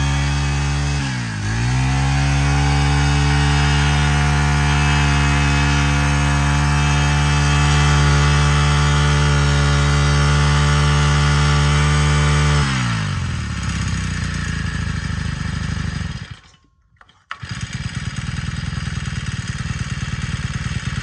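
Honda GX31 four-stroke brush cutter engine running at high throttle, with a brief dip in speed about a second in; about 13 seconds in it is throttled back and drops to a rough idle. The sound cuts out for about a second near the end, then the engine idles again.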